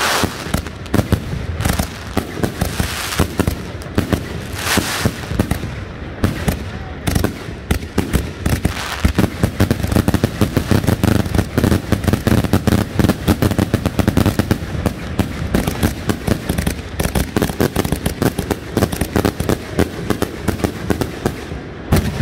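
Consumer 200-gram firework cakes firing in a dense barrage: a rapid, nearly unbroken string of bangs and crackles, packed tighter in the second half.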